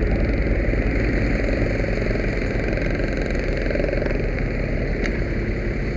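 A large diesel engine running steadily at a constant speed, a low, even rumble.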